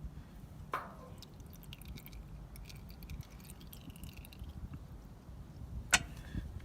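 Last of the used engine oil dripping from a tilted Champion 9200 generator's drain into an oil pan, as faint scattered ticks. There is a knock about a second in and a sharp, louder click near the end.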